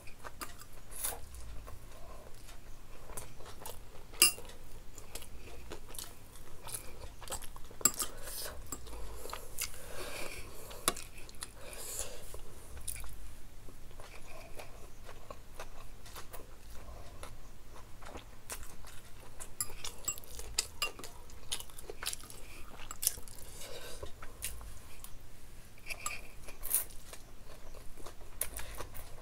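Close-up eating sounds of a person chewing and slurping Singapore-style noodles. A metal fork clicks against a glass bowl now and then, sharpest about four and eight seconds in.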